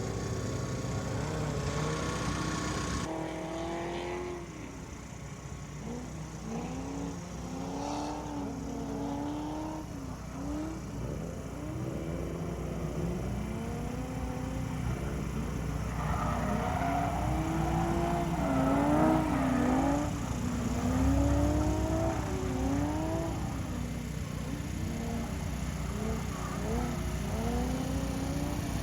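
Car engine revving up and down in repeated sweeps, the rise and fall of a car being driven in drifts on a track.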